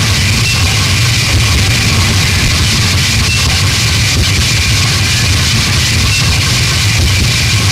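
Harsh noise music: a loud, unbroken wall of distorted noise, with a heavy low rumble under a bright hiss, that holds steady without letting up.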